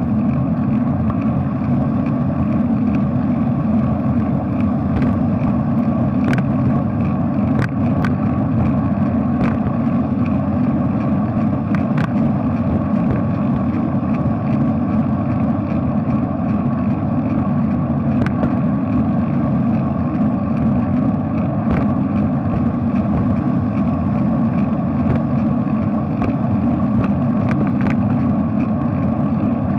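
Steady low rumble of wind and road noise picked up by a camera riding on a bicycle on a wet street in the rain, with a few sharp ticks.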